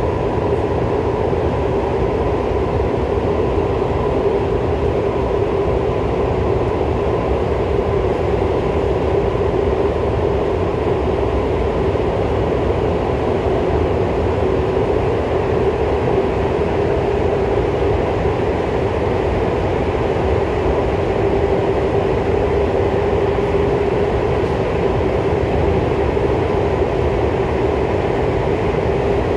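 MTR SP1900 electric train heard from inside the car, running at steady speed through a tunnel: a continuous rumble of wheels and running gear with a steady hum on top, not rising or falling.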